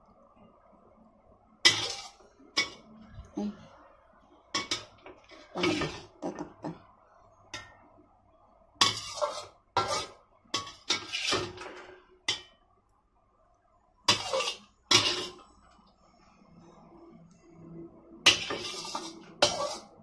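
A utensil clinking and scraping against a ceramic serving plate, in a dozen or so irregular sharp knocks with quiet gaps between them.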